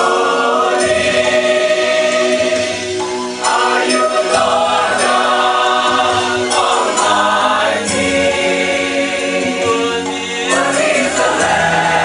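Mixed church choir of women and men singing a worship song together, holding long notes.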